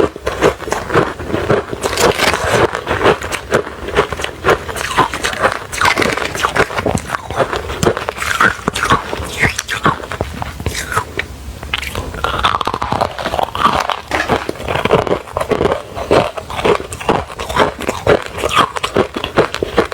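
Refrozen crushed ice being chewed close to the microphone: a dense run of loud, rapid crunches and crackles as the ice chips break between the teeth.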